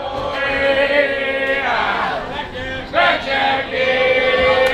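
Fishmongers shouting long, drawn-out chanted calls, the call-and-response that goes with tossing a fish across the stall. There are two long calls: the first falls away about two seconds in, and the second starts about three seconds in.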